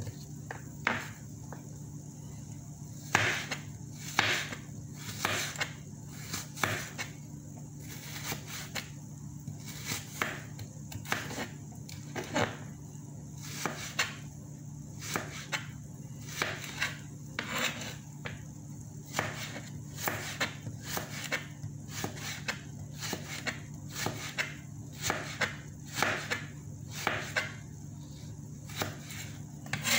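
Chef's knife slicing raw carrot into thin strips on a plastic cutting board: a string of sharp, irregular knife taps on the board, about one or two a second. A steady low hum runs underneath.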